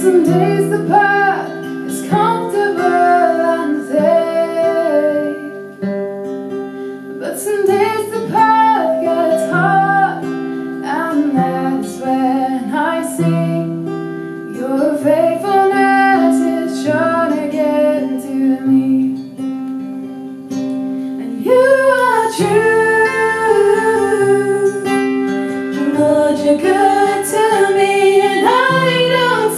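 Female vocals singing a slow gospel worship song over a strummed and picked acoustic guitar.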